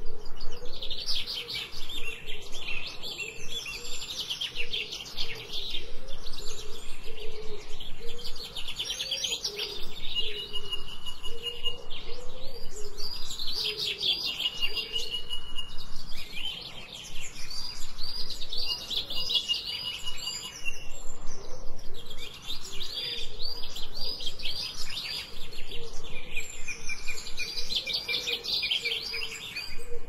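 Songbirds singing: phrase after phrase of rapid trills and chirps, some ending in a held whistled note, with short pauses between them.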